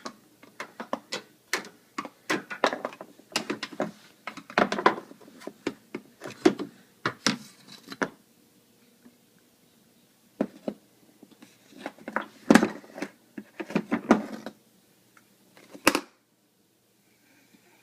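Plastic spoons clattering, tapping and knocking irregularly as a baby bangs and handles them, with a pause partway through; the clatter stops suddenly near the end.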